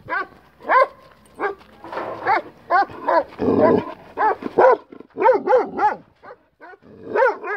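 Young Turkish shepherd dog on a leash giving a rapid run of short, high yelping barks, about three a second, loud and close, with a rougher noisy stretch about halfway through. It is worked up and straining, wearing itself out.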